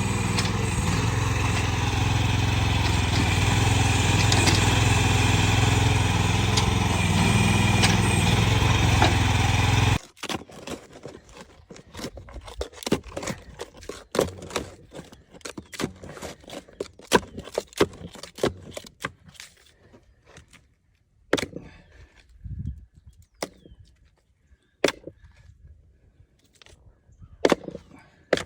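AGT QH12 mini excavator's engine running steadily under digging work, then cutting off abruptly about ten seconds in. After that, scattered sharp clicks and knocks.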